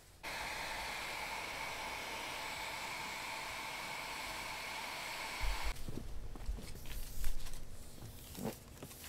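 Electric heat gun running with a steady fan whir and hiss, switched on just after the start and cut off abruptly a little past halfway; it is heating PVC conduit to soften it for bending. Then a few knocks and rustles, the loudest a single thump, as the conduit is handled.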